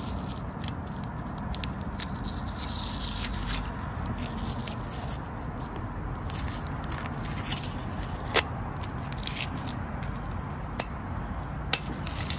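Masking tape being peeled off a bike frame and a paper-backed decal rubbed down by hand: scraping and crackling of tape and paper, scattered small clicks, and a sharp click about eight seconds in.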